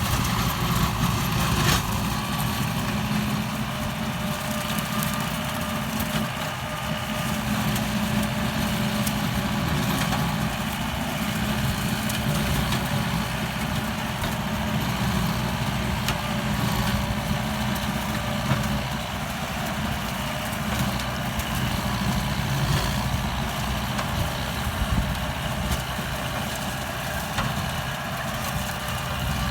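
Kubota M9540 tractor's diesel engine running steadily as it drives a rotary tiller shredding pineapple plants.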